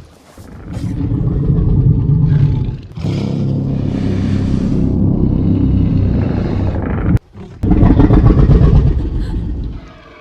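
Deep, rough monster growls from the Legendary Godzilla (2014) sound effects, dubbed over a Tyrannosaurus rex, in three long stretches with short breaks about three and seven seconds in.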